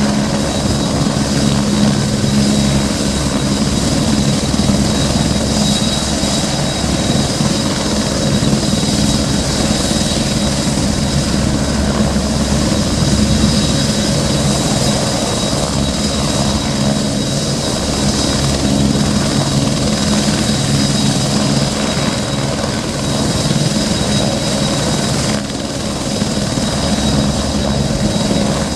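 Eurocopter AS355 F2 Ecureuil 2 (TwinStar) helicopter running with its main rotor turning: a steady high whine from its twin Allison 250 turboshaft engines over the low, rapid beat of the rotor blades.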